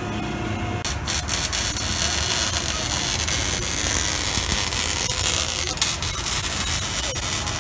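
Arc welding an exhaust pipe joint: the welding arc gives a steady crackling hiss, starting about a second in, with sharp crackles all through.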